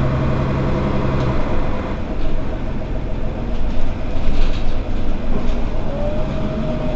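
Mercedes-Benz Citaro city bus. A steady engine hum drops away about a second in and gives way to a rough rumbling, rattling noise. Near the end a thin whine rises and then holds.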